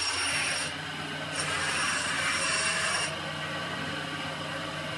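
Old bench grinder grinding a small metal workpiece against its wheel in two passes, a short one and then one of nearly two seconds, after which the grinder motor runs on alone with a steady hum.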